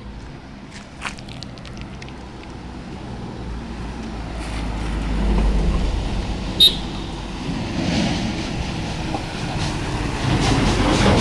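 A motor vehicle passing close by on the road: an engine rumble that builds to its loudest about halfway through, one sharp click a little later, and a fast rattling near the end.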